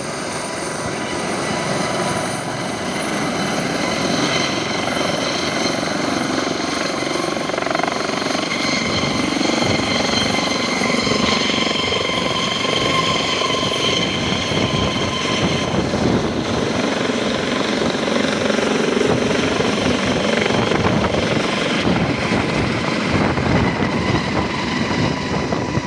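Helicopter with a shrouded fenestron tail rotor lifting off a helipad and climbing away: steady turbine whine over the rush of the rotors, slowly growing louder.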